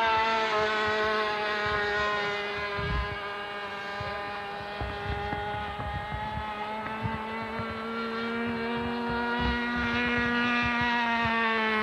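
Rossi .60 two-stroke glow engine of a radio-controlled F-18 pusher-prop model jet running at full throttle in flight, a steady high-pitched buzz. It drops a little in pitch and fades as the plane passes and draws away, then grows louder and rises again near the end. Low wind thumps on the microphone sound underneath.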